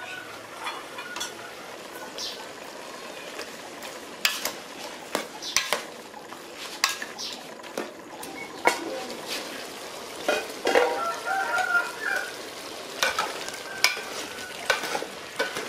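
A metal ladle stirs chicken pieces frying in curry paste in a large aluminium pot. A steady sizzle runs under irregular scrapes and knocks of the ladle against the pot.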